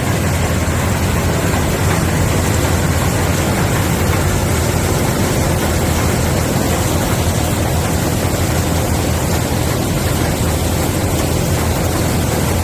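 TYM TH1200 soybean combine running steadily: a constant loud engine drone with machinery hiss over it.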